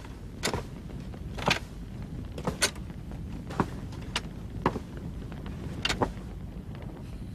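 Slow, heavy footsteps, six steps at about one a second, over a low steady rumble.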